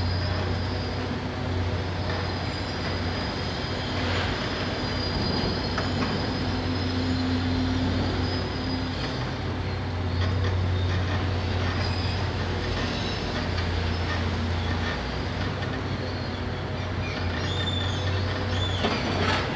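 Hitachi ZX670LCH large excavator's diesel engine running with a steady low drone, with thin high-pitched metallic squeals over it that come thickest near the end.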